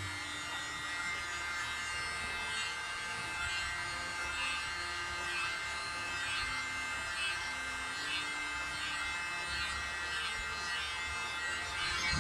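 Small handheld electric air blower running with a steady whine, blowing wet acrylic pour paint outward across a coaster tile to open it into a bloom.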